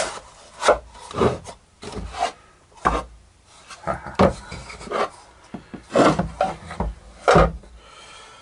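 Plywood panels of a homemade wooden planer housing being slid together and pushed into place by hand: an irregular series of short wood-on-wood scrapes and knocks.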